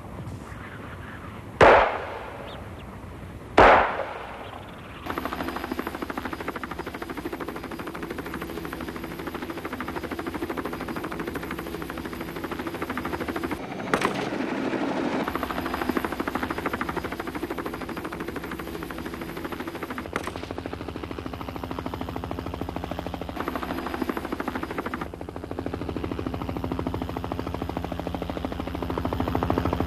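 Two loud gunshots about two seconds apart. Then a helicopter runs with a rapid rotor chatter over a steady engine hum, with one sharper crack about halfway through.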